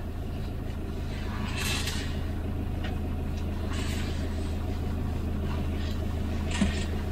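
Motorhome engine idling steadily with a low hum, with three short soft hisses along the way.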